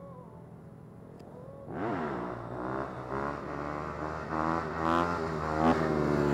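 Dirt bike engine accelerating. It comes in suddenly about two seconds in, then climbs in pitch and drops back several times as it shifts up through the gears, growing louder.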